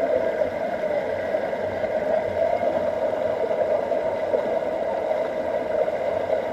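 Stream water rushing steadily over boulders, pouring and splashing around a person lying in the current.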